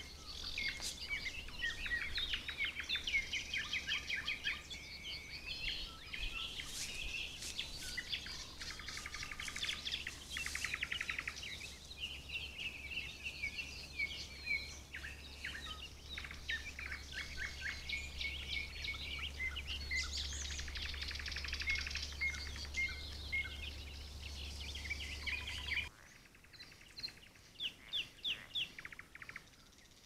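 Several songbirds singing and chirping over one another in a busy outdoor chorus, with a steady low hum underneath. Near the end the chorus and hum cut off abruptly, leaving only a few faint, scattered chirps.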